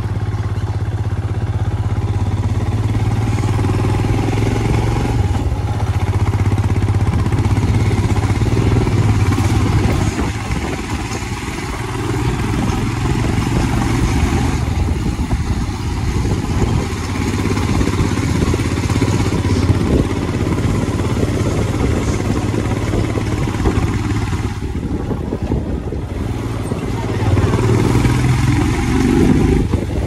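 Motorcycle engine running while riding, with road and wind noise. The engine note holds steady, eases off briefly about ten seconds in and rises again near the end.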